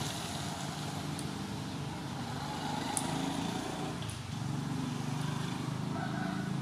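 A few faint snaps as pumpkin-flower stems are broken and peeled by hand, over a steady low motor rumble.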